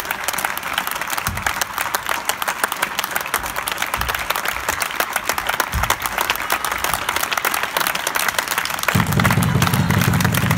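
A small group of people clapping steadily. Near the end a loud, low, steady hum comes in and keeps going.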